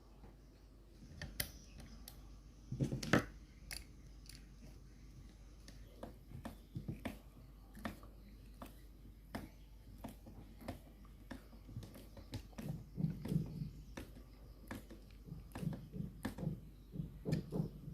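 Scattered light clicks and knocks of plastic fan parts being handled and fitted together during assembly, with quick runs of duller thumps in the last few seconds.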